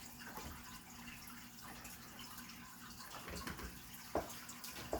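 Faint scratching and handling noise from small screws being taken out of a laptop's display panel with a screwdriver, over a steady low hum, with two small sharp clicks near the end.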